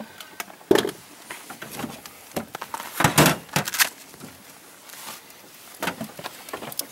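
Scattered knocks and clatter of handling in the bottom of a fishing boat, a few sharp knocks with the loudest cluster about three seconds in.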